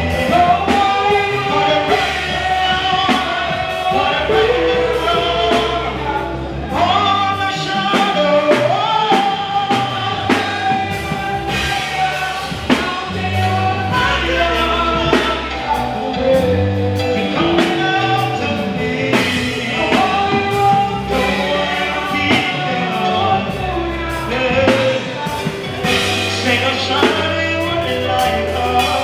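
Live gospel worship song: a male lead singer holding long sung notes with backing singers over a band with drums.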